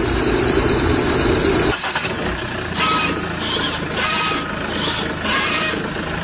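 Car suspension noise in two clips: first a steady high whine over a rumble, then after a cut about two seconds in, road noise with a squeak or creak that comes back about once a second, the kind of noise a worn suspension part makes.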